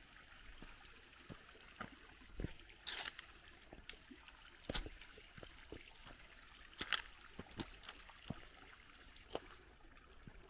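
Faint trickle of a small waterfall stream, with scattered sharp clicks and knocks, the loudest about 3, 5 and 7 seconds in.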